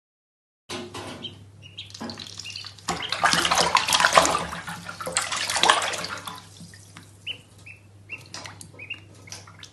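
Bathtub water splashing and churning around a swimming duckling, loudest in the middle, over a steady low hum. The duckling peeps several times near the end.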